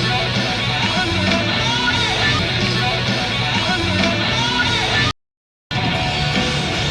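Live rock band with electric guitar, heard on a 1977 audience tape recording of a concert. Just after five seconds the sound cuts out to dead silence for about half a second, then the music resumes: the splice between the two tape sources being compared.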